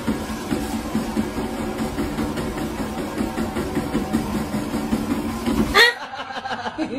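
Walking-pad treadmill running, a steady motor hum and belt rumble under a walking cat. About six seconds in it cuts off, with a brief sharp sound.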